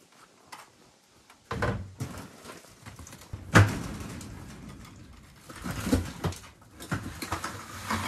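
Hand work at the base of a corrugated steel wall: irregular knocks, thuds and scraping. It starts about a second and a half in, and the loudest is a single sharp knock about halfway through.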